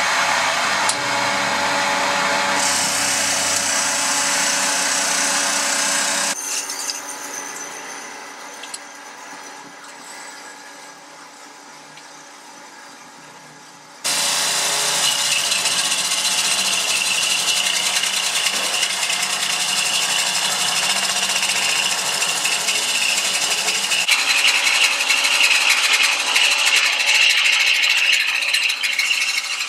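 Italian-made hydraulic copy lathe cutting a rock maple baseball bat blank. The cutting is loud for about six seconds, then dies down to a quieter machine running. About halfway through it cuts in again abruptly and keeps cutting, with a high steady tone over the noise of the cut.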